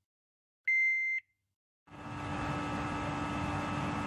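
An electronic alarm gives one high, steady beep about half a second long, the audible alarm for a loss of pressure inside a pressurized welding enclosure. About two seconds in, a steady industrial hum with a rush of air starts and runs on.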